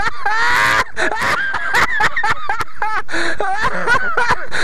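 Men laughing hard, in short broken bursts of high, rising voice.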